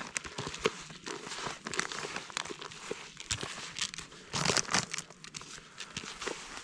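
Fishing groundbait and its packs being handled by hand: irregular crinkling and crunching, with a louder flurry about four and a half seconds in.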